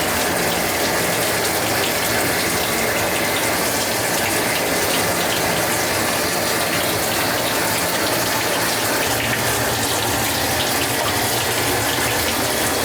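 Water spraying steadily from a grooming-tub sprayer while a cat is bathed, with a low steady hum underneath.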